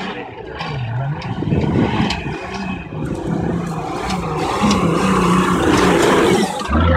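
Mercedes G-Class off-roader's engine revving under load as it climbs a steep dirt slope, dipping in pitch about a second in, then getting louder as it comes close.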